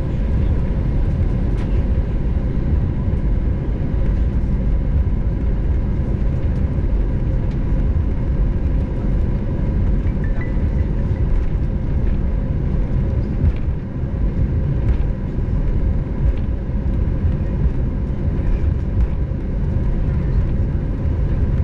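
Steady cabin noise of an Airbus A320 heard from a passenger seat: a loud, even low rumble from the engines and airframe, with a faint steady whine above it.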